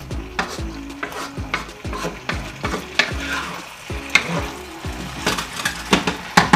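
Ackee and saltfish being gently tossed in a pot with a spoon: repeated scrapes and taps of the utensil over a light sizzle.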